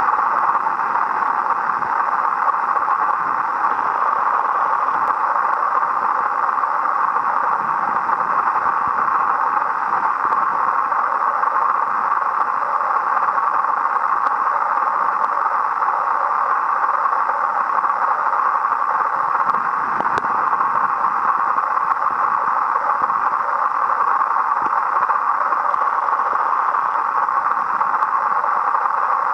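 Steady underwater noise picked up by a submerged camera: an even hiss centred in the middle range, with a few faint clicks.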